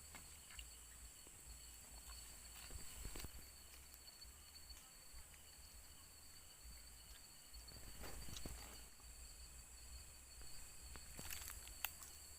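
Faint, steady high-pitched chirring of night crickets, with a few soft rustles and knocks at intervals.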